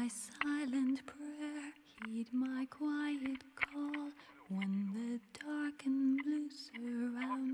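Background music: a voice singing a slow melody in long held notes.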